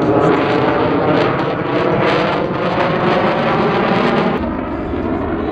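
Lockheed Martin F-35A Lightning II's single Pratt & Whitney F135 jet engine, heard loud in a display pass, its roar full of crackle. About four and a half seconds in, the sound turns duller and deeper.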